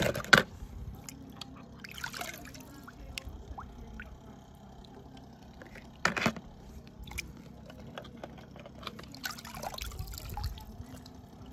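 Water sloshing and trickling as small toy cars are dropped into a pool of water. Two sharp splashing hits stand out, one right at the start and another about six seconds in.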